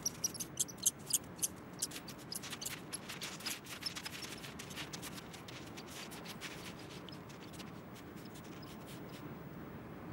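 Coyote's paws crunching on snow: quick, irregular light crackles that thin out after about five seconds, over a faint low hiss.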